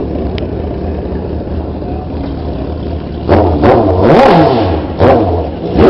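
Sport motorcycle engine idling steadily, then revved in a run of quick throttle blips over the last few seconds. The longest and loudest rev comes about four seconds in.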